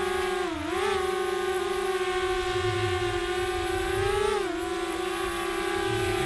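DJI Spark quadcopter's propellers whining in a steady buzzing hum, the pitch dipping briefly twice near the start and again about four and a half seconds in as the rotor speed changes.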